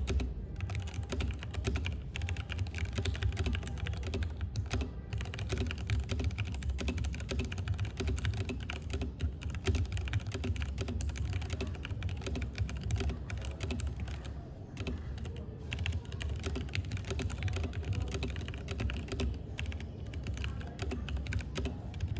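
Leopold FC660M mechanical keyboard with Brown tactile switches being typed on, a fast, continuous run of keystroke clacks with a couple of short pauses.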